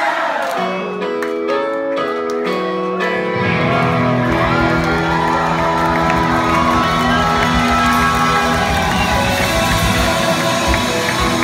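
Rock band playing live: held chords change every half second or so, then drums and the full band come in about three seconds in. The crowd cheers along.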